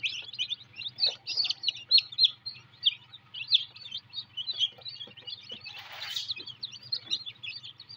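A brood of newly hatched chicks peeping constantly, many short high peeps overlapping one another. A brief rustle sounds about six seconds in.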